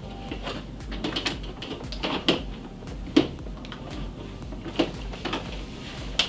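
Makeup compacts, tubes and brushes clicking and clattering on a tabletop as hands grope through them: irregular small knocks, with a sharper one about three seconds in.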